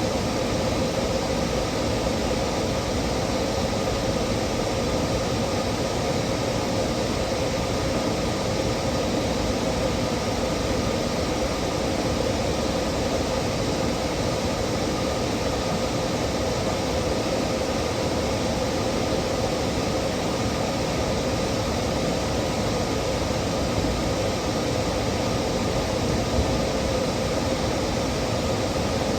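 Steady mechanical hum and hiss with a constant low tone, unchanging throughout.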